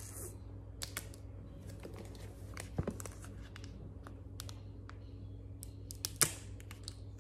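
Fingernails picking and scratching at the plastic shrink-wrap on a boxed MacBook Pro, trying to lift its edge: a scatter of small clicks and crinkles, loudest about six seconds in.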